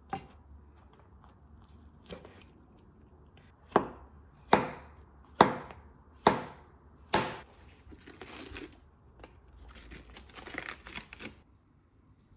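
Chef's knife chopping through fried tofu puffs and a king oyster mushroom onto a wooden cutting board: a few scattered chops, then five sharp knocks a little under a second apart. Near the end, a few seconds of rustling.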